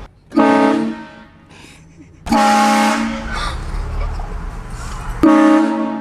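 Loud train horn blasting three times: a short blast about half a second in, a longer blast of about a second a little after two seconds in, and a third starting near the end. Each blast is a steady chord of several tones.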